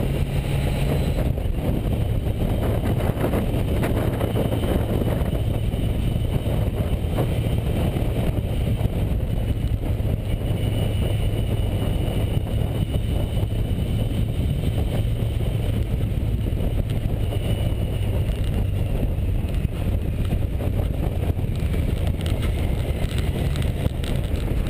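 Yamaha FJ1200's air-cooled inline-four engine running steadily while riding, picked up through the fuel tank the camera is suction-mounted on, with wind rush. The engine note drops about a second in, then holds steady.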